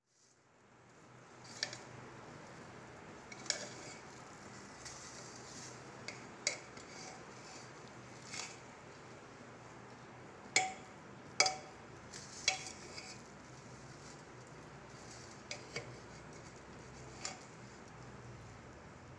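Metal ladle stirring and fluffing cooked mutton biryani in an aluminium pot, with about ten sharp clinks of the ladle against the pot's side, the loudest two a little past halfway.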